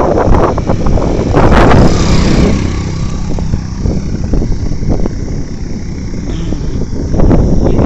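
Wind buffeting the phone's microphone while riding a bicycle along a road, a loud gusty rumble mixed with road traffic noise. It is loudest in the first couple of seconds and again near the end.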